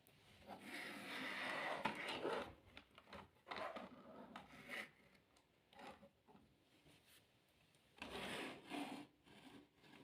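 Irregular rubbing and scraping in short bursts, as toys and their packaging are handled and moved on a surface.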